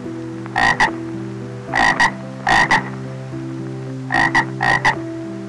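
A frog croaking in about six irregularly spaced double calls, each a short croak followed at once by a shorter one, over steady low tones that shift in pitch.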